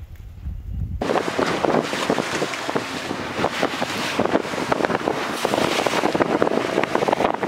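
Wind buffeting the microphone and water rushing and splashing against the hull of a boat under way on open water, starting suddenly about a second in.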